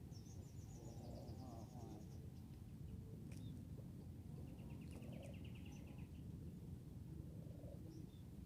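Faint outdoor ambience: a steady low rumble with two short, rapid, high-pitched trills from small wild animals, one about a second in and a lower one around five seconds in.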